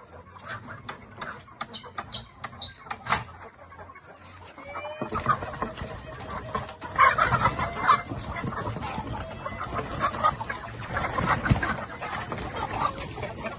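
A run of sharp clicks, then from about five seconds in, chickens clucking and calling over a steady background.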